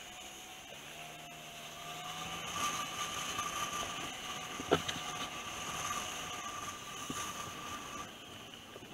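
Rusi Gala 125 scooter's engine running steadily while riding, with wind rushing over a helmet-mounted camera. It gets louder about two seconds in, and there is a single sharp knock about halfway through.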